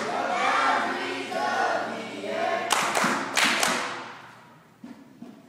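A group of young voices singing together, followed by about four sharp hand claps around three seconds in.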